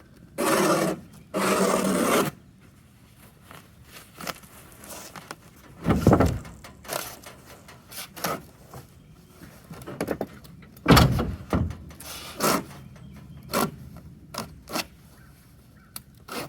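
A fabric-covered wooden window valance being pulled apart by hand: two long scraping strokes near the start, then scattered knocks and shorter scrapes of wood and board being handled.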